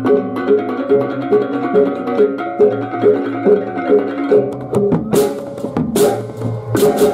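Balinese baleganjur gamelan playing: kendang drums and small bronze kettle gongs beat a steady pulse of about two strokes a second over the sustained hum of large hanging gongs. Bright crashing strokes join from about five seconds in.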